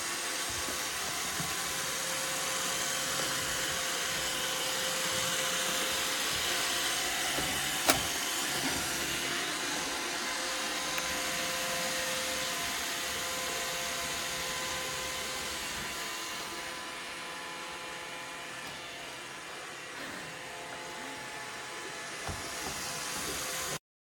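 Roomba robot vacuum running with a steady whir, with a single sharp click about eight seconds in. The sound cuts off suddenly near the end.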